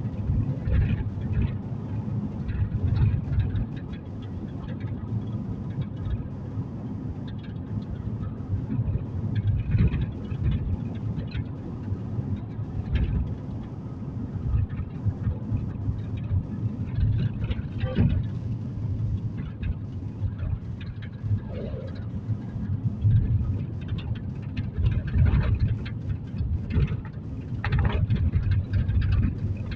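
Cabin noise inside a moving car: a steady low road and engine rumble, with occasional short knocks and rattles.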